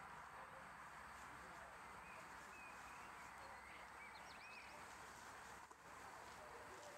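Near silence: a faint steady hiss, with a few faint bird chirps in the middle.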